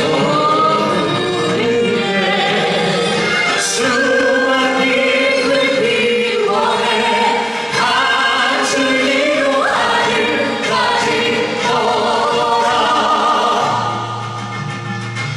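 Group of singers singing together in a choir-like blend over musical accompaniment, in a live performance.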